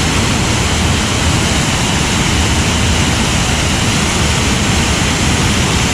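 Waterfall heard close up: a loud, steady rush of falling water.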